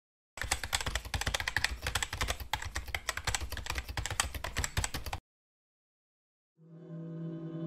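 Rapid computer-keyboard typing sound effect, a dense run of clicks for about five seconds that stops abruptly. After a second of silence, a soft sustained electronic tone fades in near the end.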